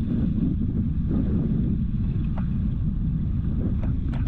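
Wind buffeting the microphone over the steady low rumble of a small fishing boat under way, with a few faint ticks in the second half.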